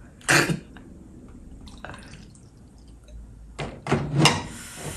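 A man's short laugh, then low background, then a few short wordless vocal sounds and a breath near the end.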